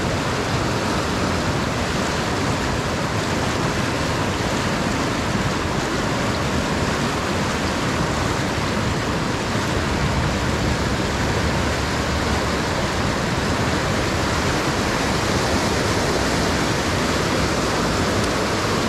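River rapids rushing over boulders: a steady, unbroken white-water rush with no change in level.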